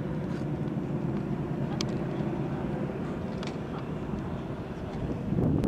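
Radial engines of a formation of four North American Harvard trainers droning overhead, with a brief louder swell near the end.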